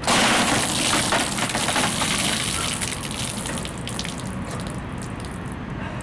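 A bucket of ice water dumped over a person's head, with a sudden loud gush of water splashing down. After about three seconds it dies away into scattered drips and splashes.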